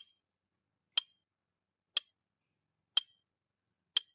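Countdown-timer clock-tick sound effect: five sharp, identical ticks, one each second, over digital silence as the quiz timer counts down to zero.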